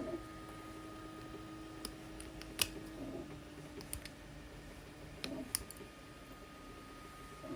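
A few sharp, irregular clicks and snaps of 3D-printed support material being broken and picked away from a print, the loudest about two and a half seconds in, over a faint steady hum.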